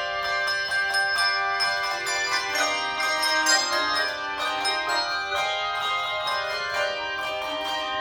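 Handbell choir playing a piece: many tuned handbells rung in turn and together, their notes ringing on and overlapping in chords.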